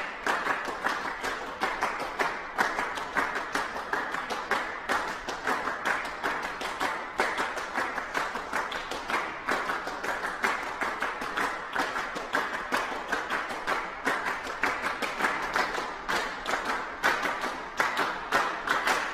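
A crowd applauding, many hands clapping densely and steadily; the applause fades out at the very end.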